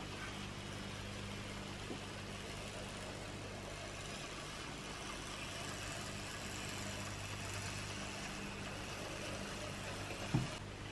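Airfix OO gauge LMS 4F model locomotive running on the layout: the old tender-mounted electric motor and wheels on the track give a quiet, steady hum and whirr, with a single sharp click shortly before the end.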